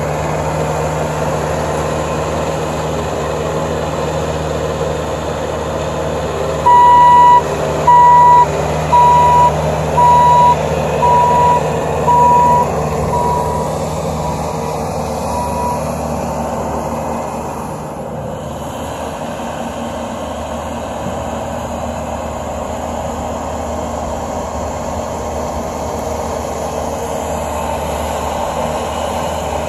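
Bobcat compact track loader's diesel engine running steadily under work. About a quarter of the way in its backup alarm beeps about once a second, some nine beeps that grow fainter, as the machine reverses.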